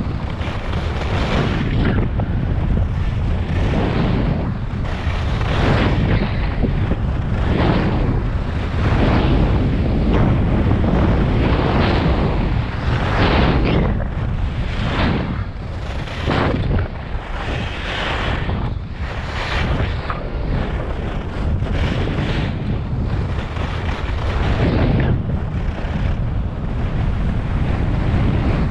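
Wind rushing over the camera microphone during a fast downhill ski run, with skis scraping on packed snow in a run of turns that swell about every one to two seconds.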